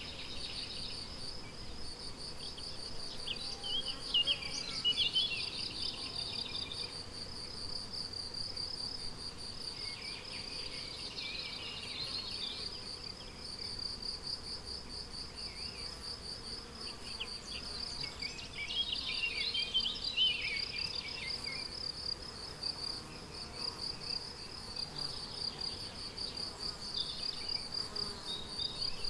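Crickets chirping steadily in a continuous high, evenly pulsed trill. Now and then a songbird sings short warbled phrases, four times.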